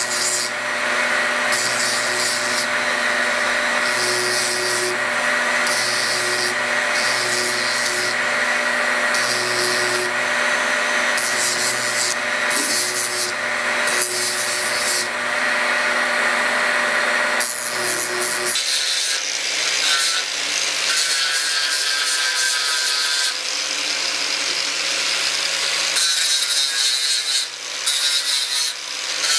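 A motor-driven grinder or sander running steadily while working a steel knife blade in repeated passes, the scraping swelling and fading about once a second. About two-thirds of the way through the motor's hum and the scraping change abruptly.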